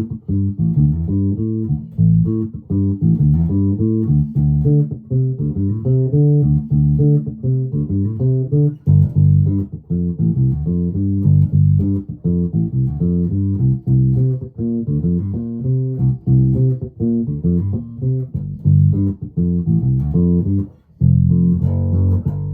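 1996 Alembic Epic four-string electric bass played with both pickups on and the treble rolled off, giving a dark tone with little top end. A steady run of quick notes, then a short break near the end and a held low note.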